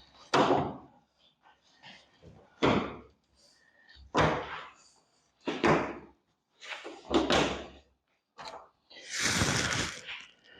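Thin metal exterior side trim being worked off its body clips by hand: about five knocks and clunks, roughly one every second and a half, then a longer scraping rustle near the end.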